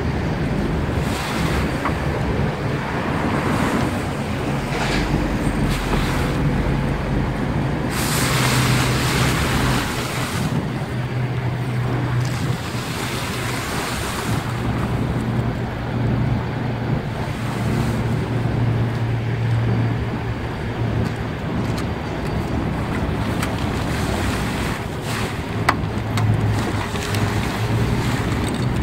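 Wind buffeting the microphone, with the car cover's fabric rustling as it is pulled and tucked by hand, over a steady low hum.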